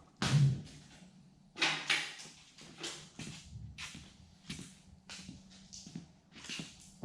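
Shop work on a car body: a run of irregular knocks, clatters and short scrapes, roughly one a second, over a faint steady hum.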